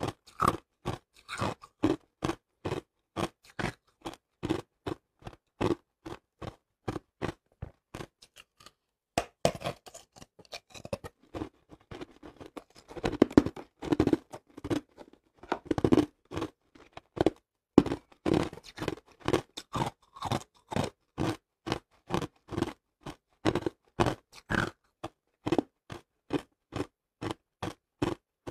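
Hard ice being bitten and chewed close to the microphone: a steady run of sharp crunches, about two or three a second, with a short pause about a third of the way in and a denser, louder stretch of crunching in the middle.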